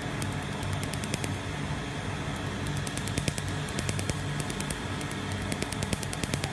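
Laser tattoo-removal handpiece firing pulses on the skin, each pulse a sharp snap, in fast runs of several a second broken by short pauses. Under it runs the steady hum of a machine's cooling fan.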